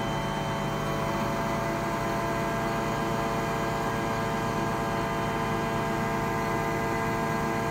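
Lorry-mounted Atlas crane working: the truck's diesel engine running steadily to drive the crane's hydraulics, with a steady hum of several tones, as the grab lifts a pallet of bricks.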